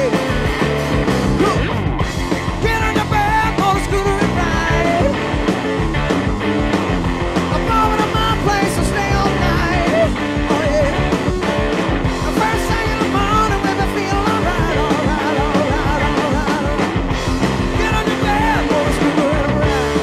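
Four-piece hard rock band playing live, with distorted electric guitar, bass and drums under a male lead vocal.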